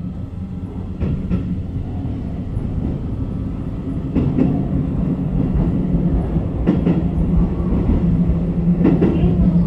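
Electric commuter train heard from inside its rear cab while running: a steady low motor hum, with the wheels clacking over rail joints and points every second or two, growing louder.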